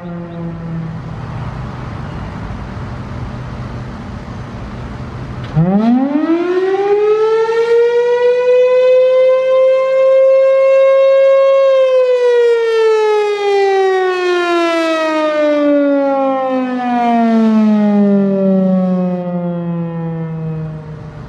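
Federal Signal Thunderbolt 1000A outdoor warning siren with its 6M blower sounding one blast. After a few seconds of low hum, the siren tone cuts in loudly about five and a half seconds in, rises in pitch over about four seconds, holds briefly, then slowly falls in pitch until the end.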